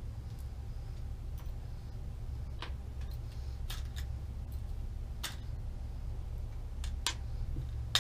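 Faint, irregular small clicks and ticks, about seven of them, as a freshly painted plastic crankbait is handled and turned by hand, over a steady low hum.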